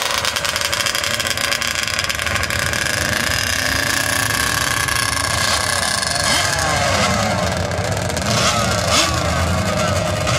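Engines of sand-drag vehicles running, with a steady high whine throughout and short revs in the last few seconds.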